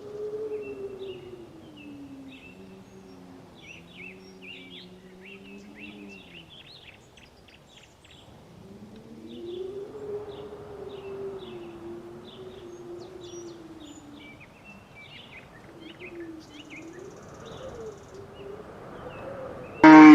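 Cows mooing: three long, drawn-out low moos, one after another, with small birds chirping throughout. A brief loud burst right at the end.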